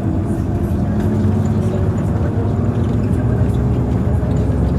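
Huanghai DD6129S15 city bus under way, heard from inside the cabin: a steady low engine and road rumble with a faint drivetrain whine that steps up in pitch.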